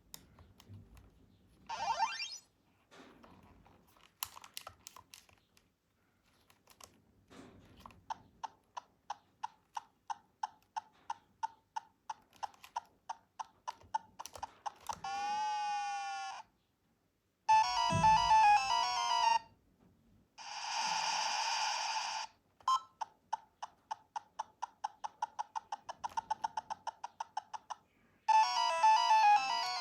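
Electronic toy sound chip playing its effects: a long run of quick beeps, about five a second, then a warbling siren-like sweep up and down. Loud bursts of chirping electronic tune follow, about two seconds each.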